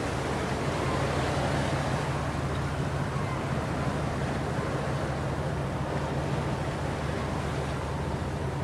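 Steady low drone of a boat engine, with an even wash of wind and water noise over it.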